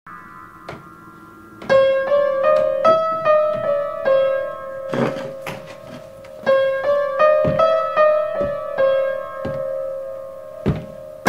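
Piano playing a repetitive tune around one recurring note, soft at first and louder from a little under two seconds in. Several dull thumps fall between the notes.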